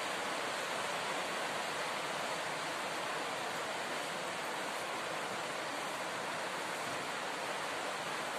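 A steady, even hiss with no distinct sounds standing out.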